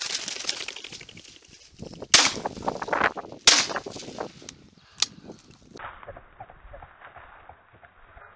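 Rustling through brambles, then two shotgun shots about a second and a half apart, each with a short echo, and a lighter click a little later.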